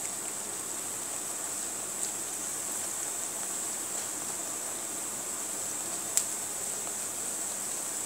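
Oil sizzling steadily as rounds of papdi dough deep-fry in a kadhai, with a few faint crackles and one sharper pop about six seconds in.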